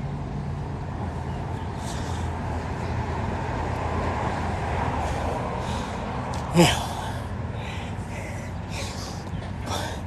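Steady street traffic noise, with a short, louder voice-like sound about two-thirds of the way in.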